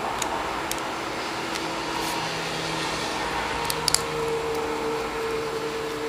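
A few small clicks and ticks of a small screwdriver working the tiny screws out of a Photon keychain light's metal body, with the key ring jostling, the sharpest pair about four seconds in, over a steady background hum.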